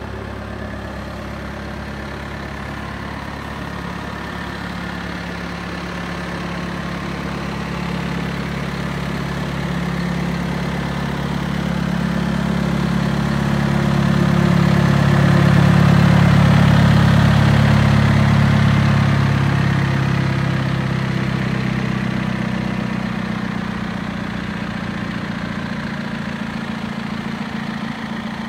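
John Deere 6130M tractor's 4.5-litre four-cylinder diesel idling steadily. It grows louder toward the middle and then fades again.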